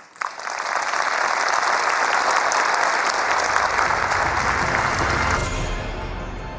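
Audience applauding loudly. It breaks out suddenly at the start and dies away near the end.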